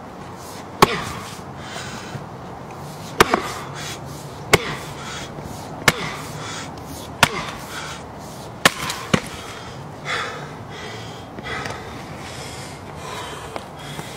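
Axe chopping a log round on a stump chopping block to split firewood: about seven sharp wood-on-steel strikes roughly every second and a half, ending about nine seconds in.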